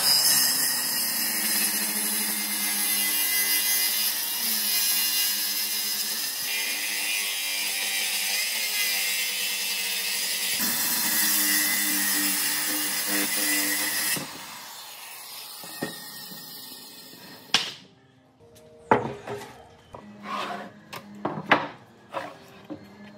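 A power tool running as it cuts wood, steady and loud for most of the time, then stopping. A series of sharp knocks follows near the end, like wood being tapped or handled.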